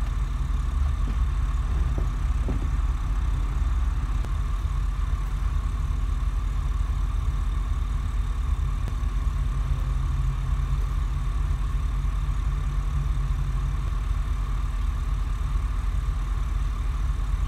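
A motor yacht's twin diesel engines idling, a steady low rumble with a constant hum over it.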